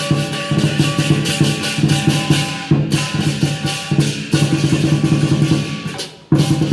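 Chinese lion dance percussion: a big drum beaten with clashing cymbals and ringing gong in a fast, driving rhythm. It breaks off briefly near the end, then starts again.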